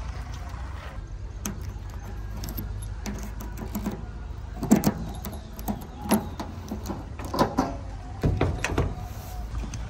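A key turning in a tractor's locking diesel filler cap and the cap being worked off the tank: a string of sharp metallic clicks and clunks from about four and a half seconds in, over a steady low hum.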